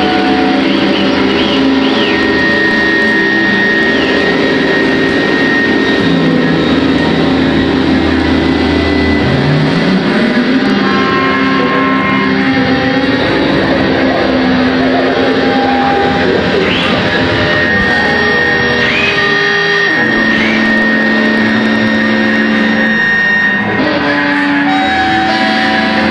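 An ensemble of guitars improvising a loud noise piece, played in unconventional ways: many overlapping sustained notes and drones, with a note sliding upward about ten seconds in.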